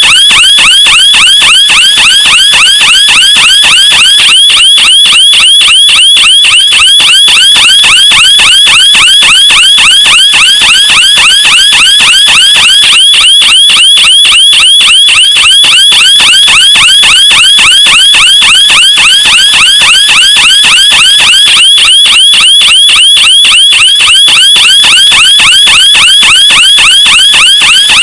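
Car alarm siren sounding continuously: a loud electronic tone sweeping up and down several times a second, repeating without change.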